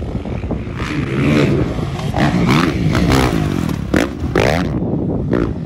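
Motocross dirt bike engine revving hard, its pitch rising and falling several times as the throttle is worked. The sound cuts off suddenly near the end.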